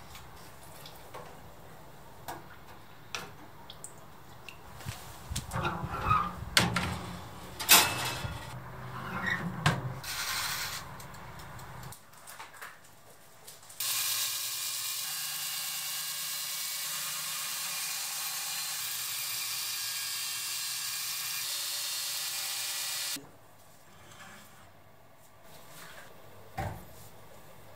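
Belt grinder grinding a steel knife blade: a steady hiss that starts suddenly about halfway through, runs for about nine seconds and cuts off abruptly. Before it comes a run of irregular clicks and metal knocks.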